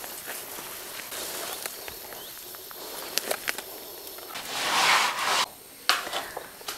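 Leafy garden plants rustling and a few light clicks as vegetables are picked by hand, over a steady outdoor hiss, with one louder rustling swish lasting about a second in the second half.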